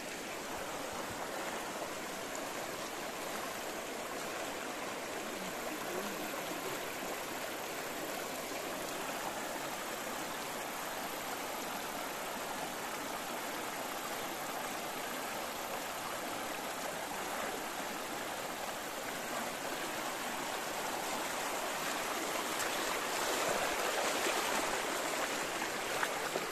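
A river flowing: a steady rush of running water that swells a little near the end.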